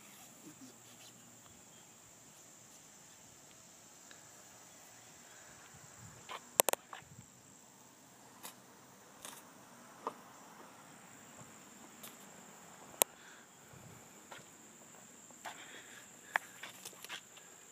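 Faint, steady high-pitched insect chirring from outdoors, with a few sharp clicks scattered through. Two of the clicks are much louder than the rest.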